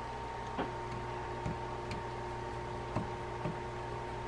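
A few faint, uneven clicks and ticks of a micro screwdriver turning a small screw into the metal side shield of a Shimano Tyrnos 10II fishing reel, over a steady low hum.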